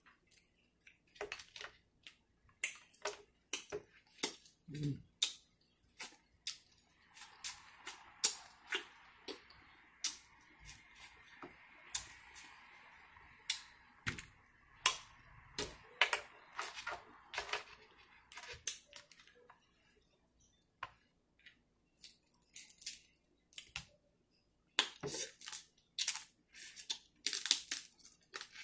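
Close-miked eating of a seafood boil: many sharp clicks and cracks from crab shells and lip smacking, with a softer steady hiss through the middle stretch.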